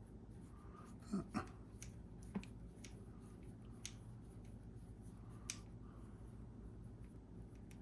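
Small sharp clicks and taps of a tool on small screws and hard plastic kit parts as a gearbox cover is screwed down: two close together about a second in, then a few single ones spread out, over a low steady hum.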